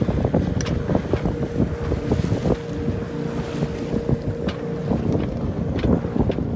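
Wind buffeting the microphone and choppy lake water slapping and rushing along the hull of a small sailboat under sail, an O'Day 19. A steady hum runs underneath for most of it.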